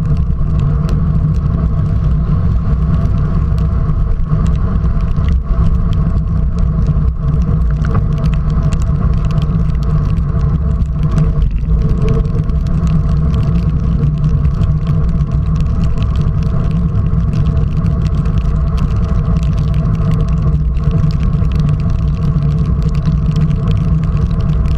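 Steady low rumble of wind and tyre noise picked up by a bike-mounted camera on a road bike riding at about 45 km/h on a rain-soaked road, with frequent small ticks of water drops striking the camera.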